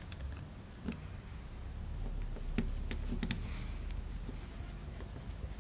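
Small screwdriver backing out the breech block screw of an airsoft pistol slide: a few faint, scattered clicks and ticks of the tool and parts being handled, over a low steady room hum.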